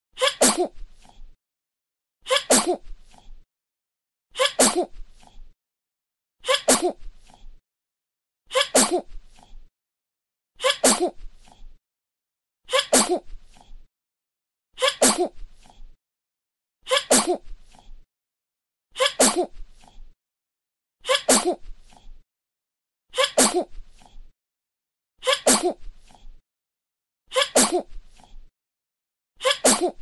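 A baby sneezing: the same short sneeze recording repeated over and over, about once every two seconds.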